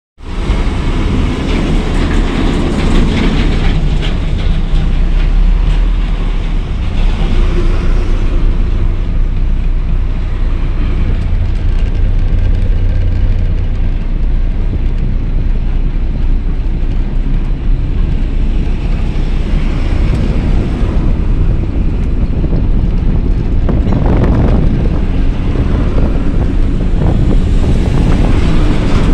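Truck driving on a highway, heard from the cab: a loud, steady low rumble of engine and road noise.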